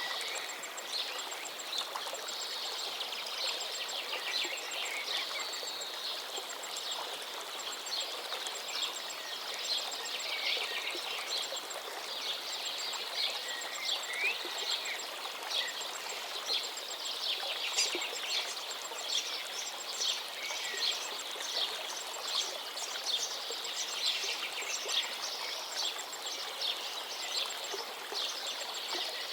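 Several songbirds singing over the steady rush of a flowing stream, with short runs of rapid high ticking mixed in.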